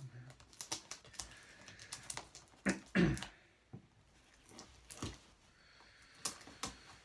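Hands handling and working open a flat vinyl mailer package: scattered light clicks, taps and scrapes, with a louder bump about three seconds in.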